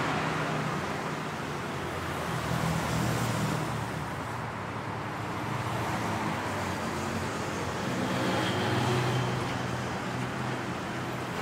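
City road traffic: a steady hum of engines and tyre noise from passing cars, growing louder as vehicles go by around three seconds in and again near nine seconds.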